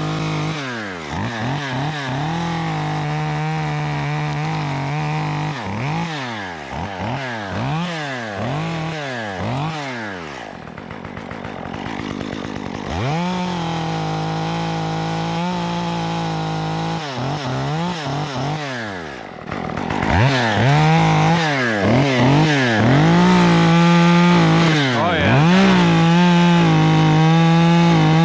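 Stihl MS 194T top-handle two-stroke chainsaw with a 1/4" chain conversion, blipped in quick revs and held at full throttle for stretches while cutting wood. It dips toward idle about ten seconds in and runs louder in the last third.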